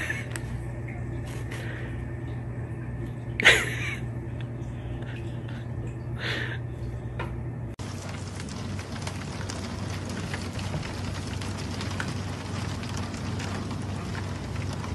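A fidget spinner whirring on a wooden floor with a steady low hum, hit sharply three times by a cat's paw. About eight seconds in, this gives way to an even hiss.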